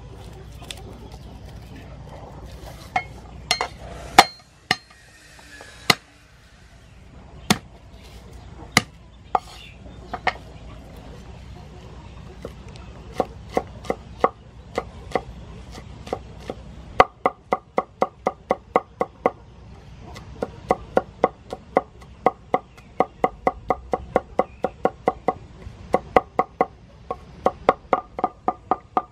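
Cleaver chopping garlic on a wooden cutting board. First come single, spaced knocks; from a little past halfway the chopping turns fast and even, about five or six strokes a second, in short runs.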